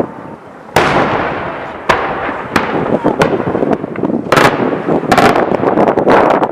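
Daytime aerial fireworks bursting overhead in a series of sharp bangs, each trailing off in echo. They come a few at a time in the first half, then faster and denser over the last second and a half.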